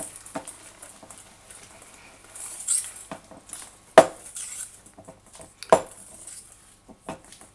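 Wire whisk stirring thick cookie dough in a stainless steel bowl: irregular scraping, with the whisk clinking and knocking against the bowl's sides, loudest about 4 s in and again near 6 s.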